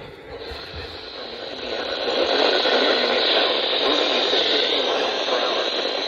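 Handheld weather radio's speaker hissing with static, fading in about half a second in and growing louder about two seconds in.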